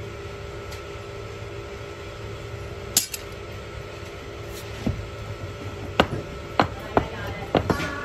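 Sharp metallic knocks of a metal bar on a metal moulding flask as sand is packed and struck off for a casting mould. There is one knock about three seconds in, then a quickening run of them near the end, over a steady background hum.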